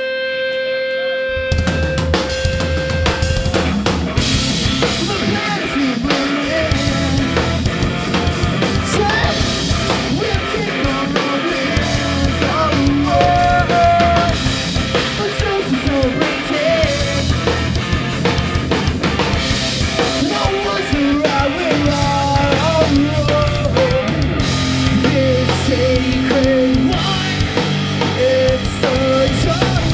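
Live rock band playing: a held guitar chord rings, then about a second in the full band crashes in with drum kit, snare and bass drum driving on under distorted guitars.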